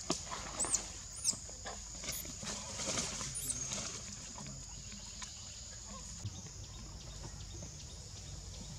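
Infant macaque giving several short, high-pitched squeals of distress while stuck in a crack between stones, the loudest in the first second or two and ending after a few seconds, over a steady high insect buzz.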